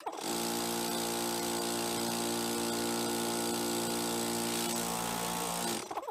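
DeWalt air compressor's electric motor and single-cylinder pump starting instantly and running steadily for about six seconds, then switched off near the end. It runs on a substitute start capacitor wired in place of the failed 60 µF one, showing the dead capacitor was the fault.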